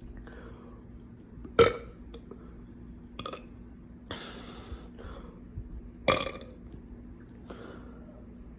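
A person burping after chugging a drink: two loud burps, about one and a half seconds in and near six seconds in, with several softer ones between and after.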